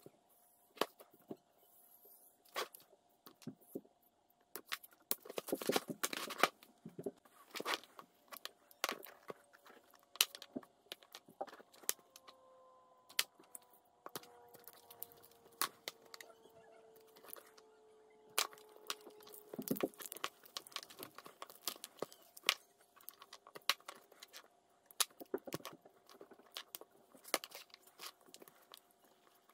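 Old, brittle sheathing and wire insulation on a Mercedes M119 lower engine wiring harness crackling and tearing as it is slit with a blade and peeled off the wires, in irregular sharp crackles and clicks. The insulation is aged and crumbling apart.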